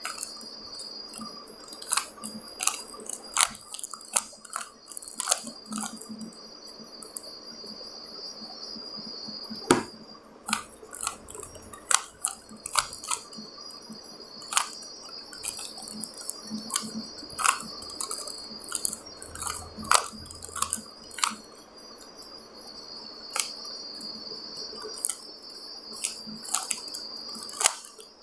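Plastic 3x3 Rubik's cube being turned by hand: the layers click and clack in quick irregular runs of turns, with a few louder snaps.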